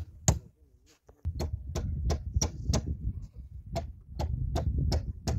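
Hammer blows nailing down a wooden coffin lid, struck in quick runs of about three a second with short pauses between runs.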